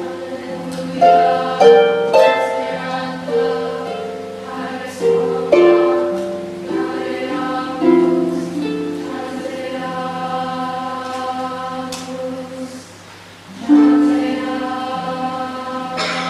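Girls' choir singing with a Lyon & Healy Style 85 concert grand pedal harp accompanying, the harp's plucked notes ringing out under the held voices. The music thins to a short lull about three-quarters of the way through, then comes back in strongly.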